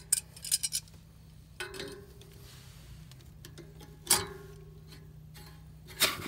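Sharp metallic clicks and clinks of tongue-and-groove pliers and the chrome air vent as a steam radiator vent is gripped and unscrewed: a quick cluster of clicks in the first second, single clicks around a second and a half and four seconds in, and a louder one near the end as the vent comes free.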